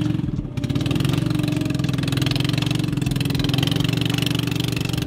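Small boat engine running at a steady, even speed, with a brief dip in level about half a second in.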